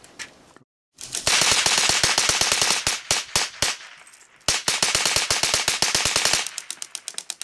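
Hand-cranked 1/3-scale Gatling gun firing .22 Short rounds from a Bruce feed, in two rapid bursts of shots with a short pause between them. Near the end the shots spread out and get quieter.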